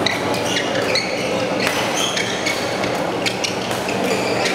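Badminton doubles rally: several sharp cracks of rackets striking the shuttlecock at irregular intervals, with short high squeaks of court shoes on the floor over a steady hall background hum.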